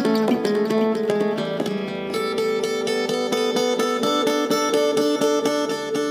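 Acoustic guitar fingerpicked through a delay effect: a quick run of plucked notes about a second in, then evenly spaced notes that repeat and pile up into a ringing wash.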